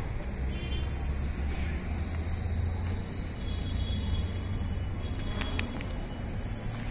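Night-time outdoor ambience: insects trilling in steady high tones over a constant low rumble, with a few faint clicks a little past the middle.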